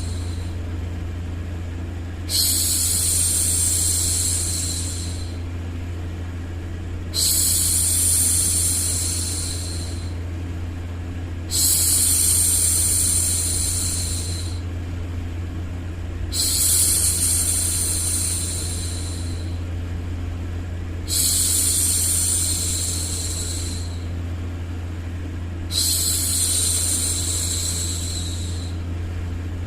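A woman shushing, a long drawn-out "shhh" repeated six times about every four to five seconds, each one starting sharply and fading. Underneath runs a steady low white-noise hum.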